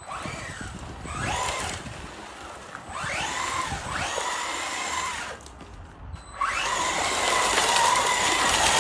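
Electric RC rally car's motor whining up and down in pitch in repeated throttle bursts as the car accelerates and lets off, the last burst starting about six and a half seconds in, louder and held on.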